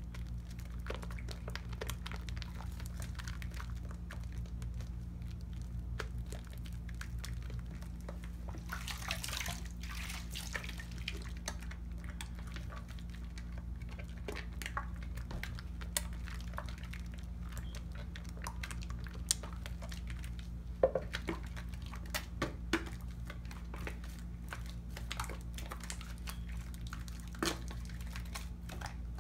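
A wet bar of Tone cocoa butter soap being lathered between hands over a sink of soapy water: steady wet squishing and sloshing, with a few sharp clicks in the second half. A steady low hum runs underneath.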